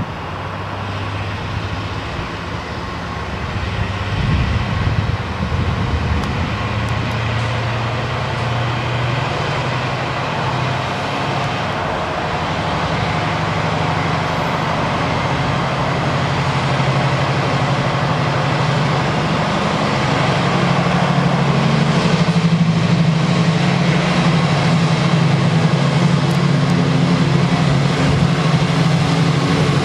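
Freightliner Class 70 diesel locomotive's GE PowerHaul V16 engine running as it hauls a container train slowly past, growing steadily louder as it nears. The engine note rises to a higher pitch about twenty seconds in and holds there.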